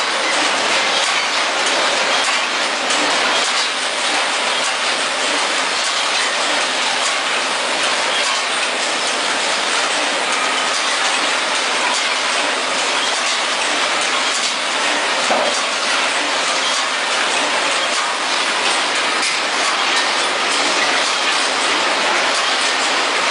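Vertical powder packaging machines for baking powder running together, making a steady mechanical clatter of rapid clicks over a constant hiss and a faint low hum.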